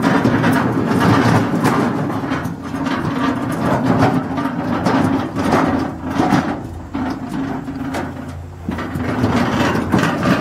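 Steel yard cart loaded with old mower tires and plastic body panels rattling and clunking as it is shoved about, with irregular knocks from the parts shifting in its metal bed. A steady low engine hum runs underneath.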